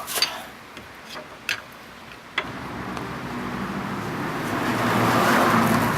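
A few sharp metal clicks, then a car's engine and tyre noise come in about two and a half seconds in and swell steadily, like a vehicle approaching and passing on the road.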